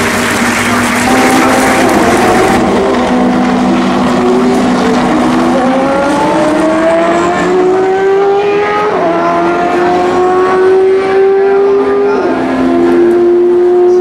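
Race car engine accelerating hard through the gears, its note climbing and dropping sharply at upshifts about nine and twelve seconds in.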